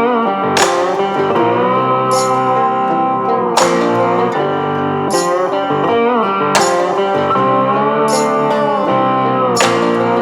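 Background music: bluesy guitar with bending notes over a steady beat.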